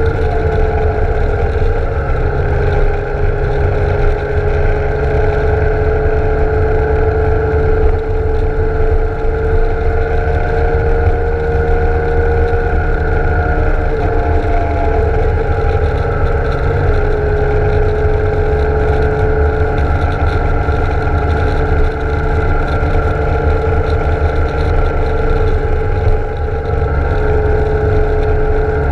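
BMW K1600 GTL's inline-six engine running at a steady cruise while riding, its note shifting only slightly in pitch, under a heavy low rumble of wind on the bike-mounted camera.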